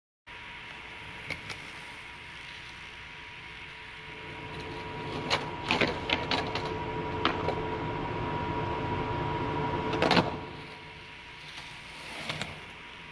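Skateboard wheels rolling over rough concrete, growing louder, with a run of wooden clacks and scrapes as the board pops onto a box ledge in a frontside noseslide attempt. A loud clack about ten seconds in, then the rolling fades.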